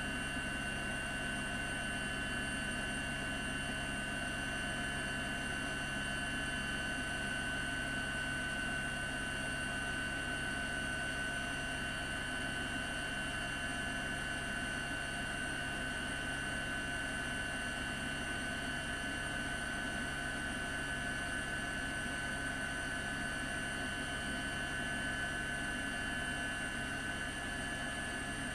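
Steady helicopter noise: a constant engine drone with several high whining tones that do not change.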